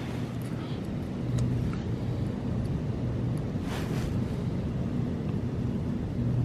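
Steady low hum of an idling car engine, growing a little louder a little over a second in. A brief rustle comes just before the four-second mark.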